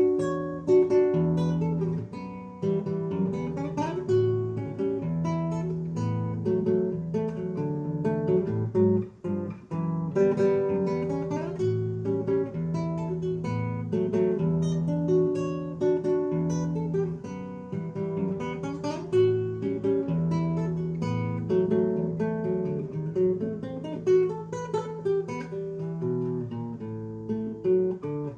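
Acoustic guitar (violão) playing a continuous piece that imitates the sound of carillon bells: plucked notes left to ring over each other above a repeating bass line.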